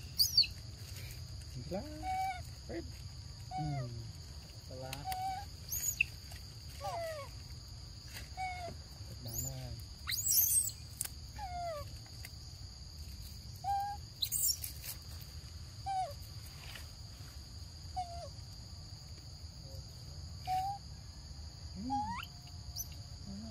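Forest ambience: a steady high insect drone, with short pitched calls every second or two and a few sharp high chirps.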